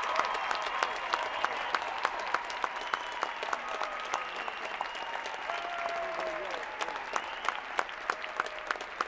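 Arena crowd applauding and cheering at the end of an ice-dance program, with one set of claps close by standing out sharply about three times a second.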